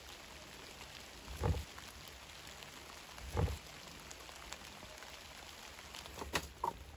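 Two dull wooden knocks about two seconds apart as a wooden bowl and a wooden spatula are set down on a wooden cutting board, over steady light rain pattering, with a couple of light clicks near the end.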